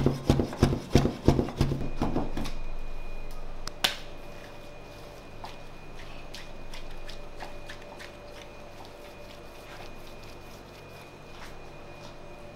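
Large knife chopping minced meat on a cutting board, quick heavy strokes about three a second that stop after about two and a half seconds. A single sharp knock follows near four seconds in, then only faint scattered clicks over a low steady hum.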